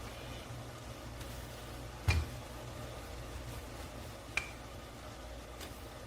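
Two sharp knocks with a brief ring, about two seconds apart, over a steady low hum, from utensils being handled while chapati is rolled out and cooked in a pan.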